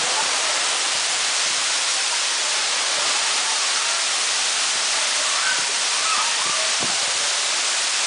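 Véu da Noiva waterfall, a tall cascade falling over rock, rushing with a steady, loud hiss of falling water close by.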